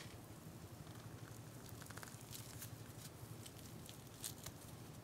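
A chewy cheese bread ball (Motchy Ball Cheese) being squeezed and torn apart by hand. Faint soft crackles and small tearing sounds come mostly in the second half.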